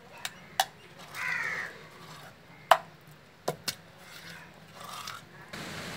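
A crow caws once about a second in, over a few sharp clicks and knocks of a hand and steel bowl against a stone grinding mortar as chutney paste is scraped out. The loudest knock comes a little before the middle.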